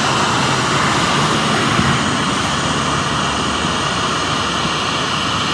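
Steady static hiss from a ghost box app playing through a smartphone speaker, even and unbroken.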